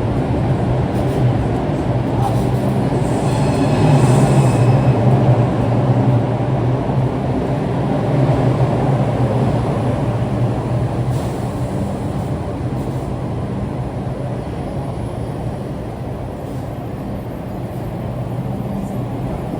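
New York City subway train running through the station: a steady rumble with a low hum, loudest about four seconds in and easing off slowly after.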